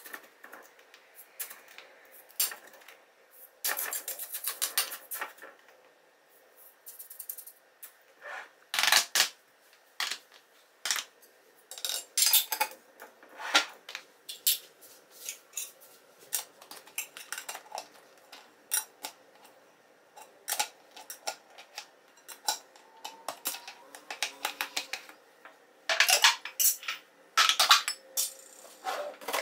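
Sugar scooped into a metal canister with a grainy pour near the start, then a string of clinks and knocks as metal tins, lids and glass jars are picked up and set down on a countertop.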